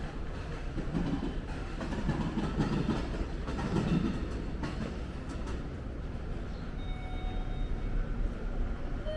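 A train running past, with several heavy low pulses between about one and four seconds in.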